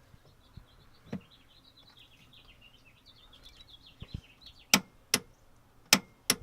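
Click-type torque wrench breaking over on a bolt of a BMW E36 cylinder head: four sharp metallic clicks in two pairs, the bolt checked at its set torque. Faint high chirping before the clicks.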